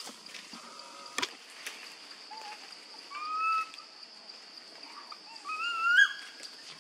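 Two rising, whistle-like coo calls from a young macaque, the first about three seconds in and the second, louder one near five and a half seconds, over a steady high-pitched insect drone.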